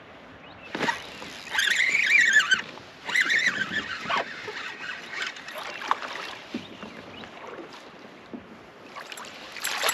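Spinning rod and reel retrieving a spinnerbait from a kayak, with a couple of loud honking bird calls in the first few seconds. Near the end a bass takes the lure and splashes as the rod loads up.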